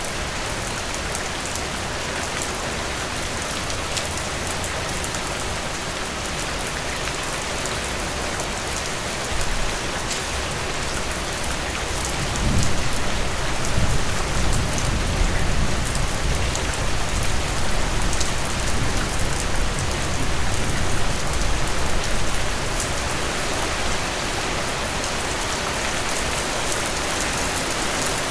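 Heavy rain falling steadily. A long, low rumble of thunder swells in about halfway through and fades out a few seconds later.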